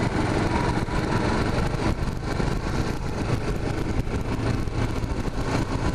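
Suzuki GZ250 motorcycle's single-cylinder engine running steadily at low speed while the bike is ridden.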